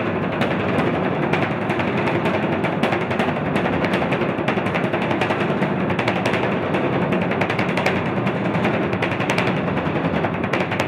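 Fast, continuous drumming on a large drum: a dense roll of stick strokes with no break.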